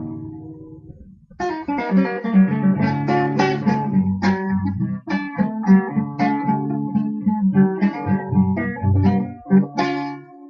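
Guitar being played: a chord rings and fades away, then a run of plucked notes and chords follows for about nine seconds and stops near the end.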